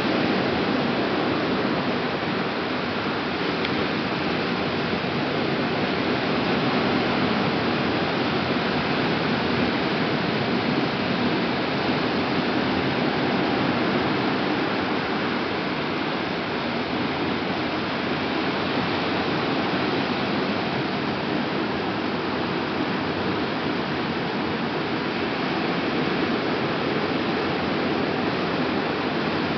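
Ocean surf breaking on a sandy beach: a steady rushing roar of waves with only gentle swells in loudness.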